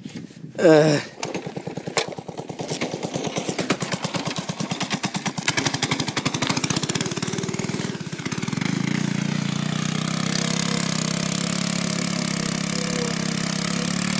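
Go-kart's small gasoline engine running with a rapid train of firing pulses, then throttled up about eight seconds in to a steady, higher-pitched run as the kart drives off.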